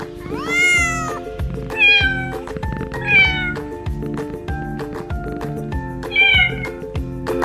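A cat meowing four times over background music with a steady beat: one longer meow that rises and falls near the start, then shorter meows falling in pitch about two and three seconds in and again near the end.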